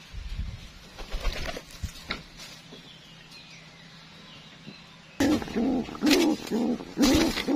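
A nesting homing pigeon defending its nest against a hand: short aggressive coos repeated about twice a second, mixed with sharp slaps of its wings. They start suddenly about five seconds in, after a few faint taps.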